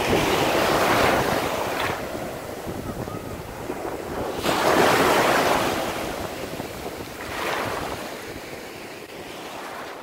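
North Sea surf washing up onto a sandy beach: three rushing surges of foam, the loudest a little before halfway, with wind buffeting the microphone.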